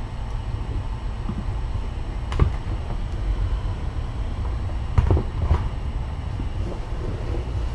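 A steady low rumble of room noise, with three short knocks: one a third of the way in and two close together about two thirds through.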